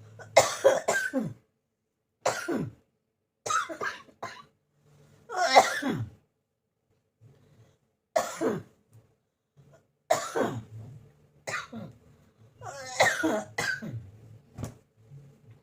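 A person coughing again and again: about nine single coughs and short coughing fits with pauses between them, some ending in throat-clearing. It is a bad cough with a cold.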